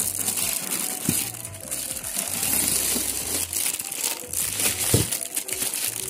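Clear plastic wrapping crinkling steadily as wrapped heat press attachments are handled and lifted out of a foam-packed cardboard box, with two light knocks, one about a second in and one near the end.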